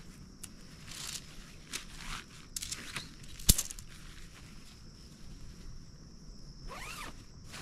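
Tent bag and stuff sacks rustling as a tent is unpacked by hand, with a sharp click about three and a half seconds in as the bundled tent poles come out onto the groundsheet. Insects chirp steadily behind.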